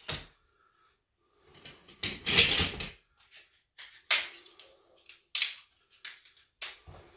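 Folding legs of a lightweight camping cot being handled. A clattery rattle comes about two seconds in, then a few sharp clacks as the leg sections snap back open without their retaining bands.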